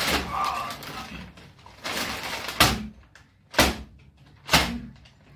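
Thick brown kraft-paper wrapping crinkling and being yanked at by hand in a struggle to tear it open. Three sharp crackling pulls come about a second apart in the second half, and the paper holds.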